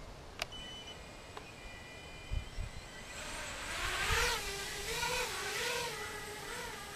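Small quadcopter's brushless motors and propellers: a faint high whine at first, then throttle up about three seconds in as it lifts off, settling into a whirring hover hum that wavers in pitch. It is running on a 3S LiPo pack, on which it flies steadily.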